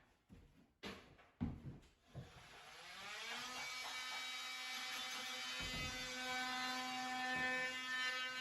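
Knocks, then an electric power tool's motor spinning up to a steady whine and running at constant speed.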